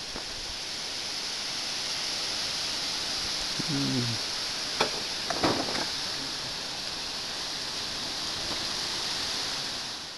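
Steady high outdoor hiss, with a brief low falling call about four seconds in and a few faint clicks soon after.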